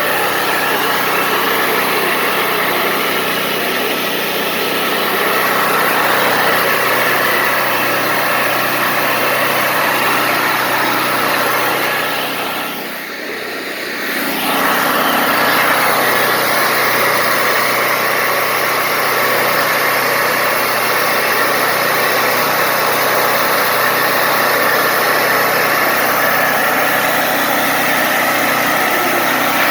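Wood-Mizer LT40 Wide portable band sawmill running steadily, with its engine and band blade going. The level dips briefly about halfway through, then returns to the same steady running.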